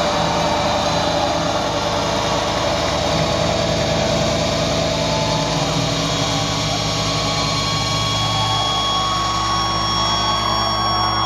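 Loud live rock band playing a dense, distorted droning wall of guitar noise, with several high steady tones coming in from about nine seconds in.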